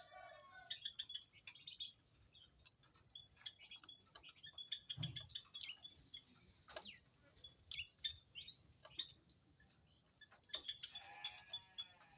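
Common ioras (cipoh) chirping faintly: rapid short high chirps throughout, a few quick downward-sweeping notes, and a fuller call near the end. A soft low thump comes about midway.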